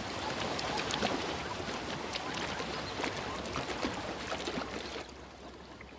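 Zebra hooves splashing through shallow muddy water at a crowded waterhole, a dense run of small splashes and sloshes that drops away about five seconds in.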